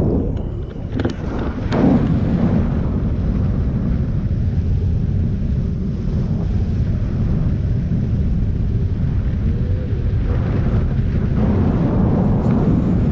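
Wind rushing over an action camera's microphone during paraglider flight: a loud, steady low rumble. A couple of brief knocks come in the first two seconds.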